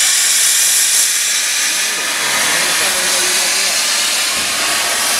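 Loud, steady hiss of steam from the open cylinder drain cocks of Southern Railway Q class 0-6-0 steam locomotive No. 30541 as it moves off.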